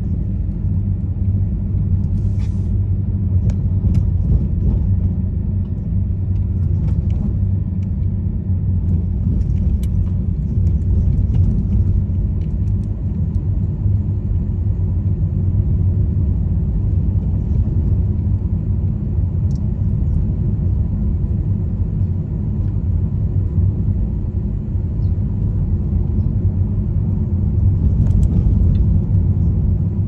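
Car driving slowly on an unpaved gravel lane, heard inside the cabin: a steady low rumble of engine and tyres, with a few faint clicks scattered through it.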